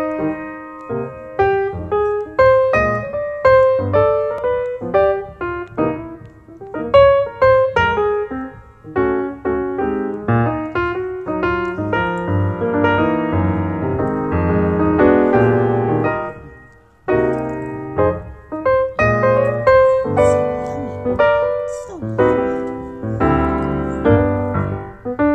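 Background piano music: a lively tune of quick struck notes that briefly pauses about two-thirds of the way through.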